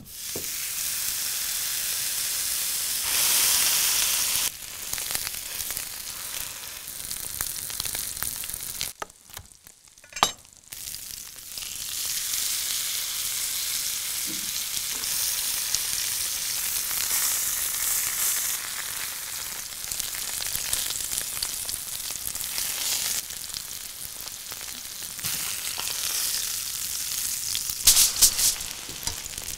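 Wagyu ribeye steak sizzling as it sears in a hot frying pan: a steady hiss of frying fat. It swells about three seconds in, drops out briefly around nine to ten seconds in apart for one sharp click, and ends with a few sharp crackles near the end.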